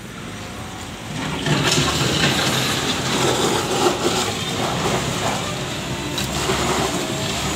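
A steel shovel scraping and digging into a truck bed load of gravel, the stones crunching and sliding as the pile is levelled, starting about a second and a half in.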